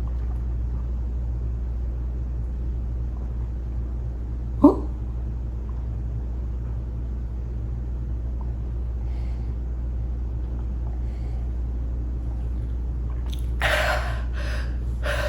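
A man's single sharp hiccup about a third of the way in, a short yelp rising quickly in pitch, over a steady low hum. Near the end come a few heavy, breathy breaths as he catches his breath after a long drink of water.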